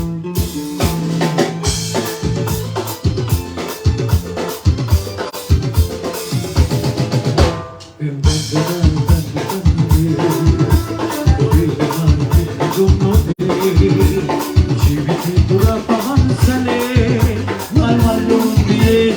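Live band playing through a PA during a sound check, with a drum kit beating out a fast steady pattern over bass and other instruments; the music drops out briefly about eight seconds in, then comes back in.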